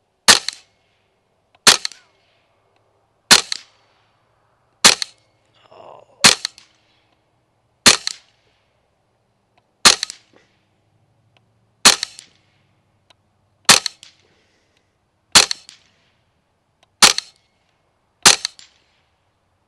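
KalibrGun Springbok PCP air rifle, shrouded, fired about a dozen times at a steady pace: one sharp crack every second and a half to two seconds, each with a brief tail.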